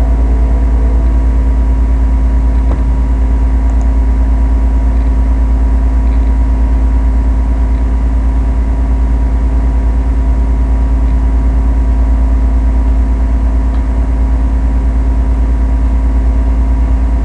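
Loud steady hum made of several fixed tones over a strong low drone, the constant background noise of the recording. The last notes of a guitar startup chime end in the first half second.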